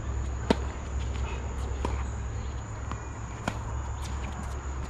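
Tennis ball struck by rackets and bouncing on a hard court during a rally: sharp pops every second or two, the loudest about half a second in and about three and a half seconds in, over a steady high hum.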